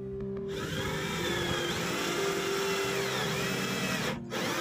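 Cordless drill boring into a wall, its motor whine wavering in pitch, starting about half a second in and stopping briefly near the end before it starts again. Background music plays underneath.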